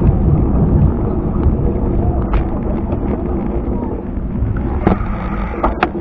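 Steady wind buffeting on the microphone over the rumble of a bicycle rolling along a paved tile path, with a few sharp clicks, two of them close together near the end.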